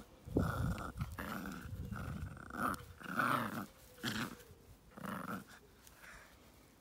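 A puppy growling in short, repeated bursts while tugging on a clump of grass held in a person's hand: playful tug-of-war growls. The growls fade out about five and a half seconds in.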